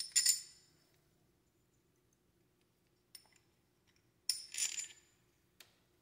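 Loose metal hardware clinking as it is handled: a bright clink at the start, a light tick about three seconds in, a longer jingle of metal parts a little past four seconds, and a last tick near the end.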